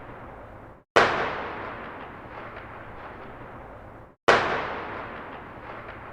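Distant gunshot echoing along a street: a sharp crack followed by a long fading echo, fired twice about three and a half seconds apart. Each echo tail cuts off abruptly before the next shot.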